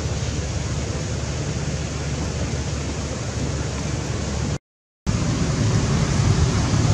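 Steady rushing noise with a strong low rumble and no distinct events. It cuts out completely for about half a second a little after halfway, then resumes slightly louder.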